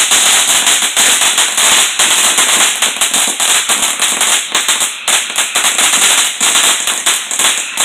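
A ground fountain firework spraying sparks with a loud, dense crackle of rapid small pops.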